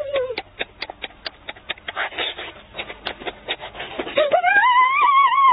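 Wet chewing and lip-smacking, heard as a run of short sharp clicks. From about four seconds in, a long, high, wavering whine rises and then falls.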